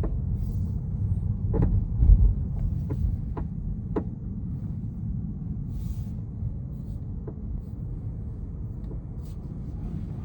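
Tesla Model 3 on the move with a steady low road rumble, and the car's knocking rattle heard as a handful of short sharp knocks, most of them between about one and a half and four seconds in and one more a little after seven seconds.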